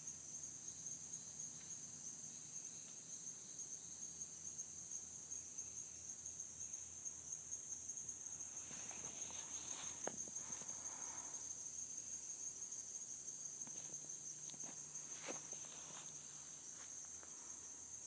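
A steady, high-pitched insect chorus: an unbroken shrill drone, with a few faint clicks partway through.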